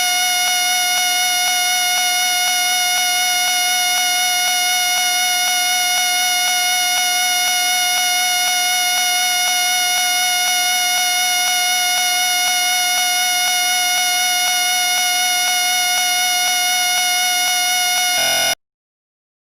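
A whistle blown on one long, steady, shrill tone with a slight waver underneath. It cuts off suddenly near the end, leaving dead silence.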